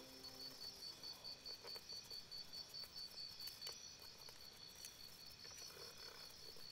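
Near silence with a faint, high-pitched chirping pulse, like an insect, repeating several times a second. A music note dies away at the very start.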